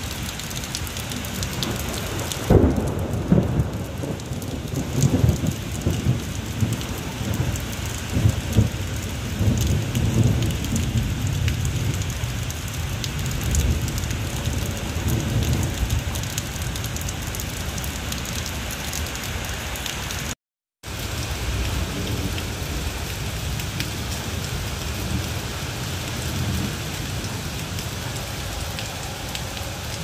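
Steady rain falling, with a long low rumble of thunder starting about two seconds in and rolling on for around ten seconds before fading back into the rain. The sound cuts out briefly about two-thirds of the way through.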